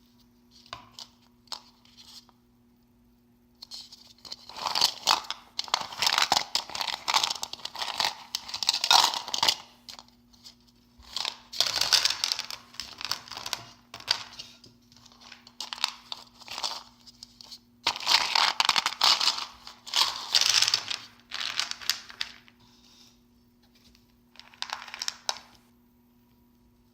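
Candy packaging torn open and crinkled by hand, in repeated bursts of a few seconds with short pauses between them.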